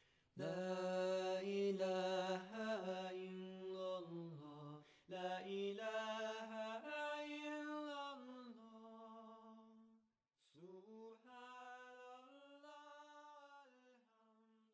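A single voice chanting Islamic dhikr in long, drawn-out melodic notes: three slow phrases with brief pauses between them, the last one fading out near the end.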